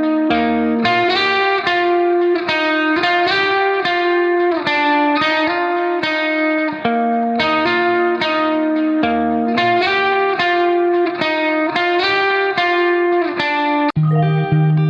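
Background music: a plucked guitar melody in evenly paced notes. Near the end there is a brief break, and a bass line comes in.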